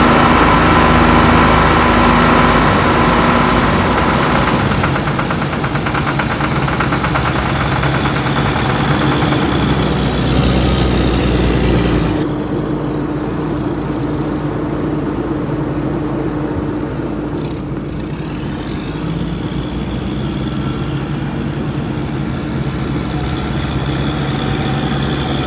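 Engines of heavy vehicles such as tractors running steadily on a road. The sound changes abruptly, losing its hiss, about halfway through.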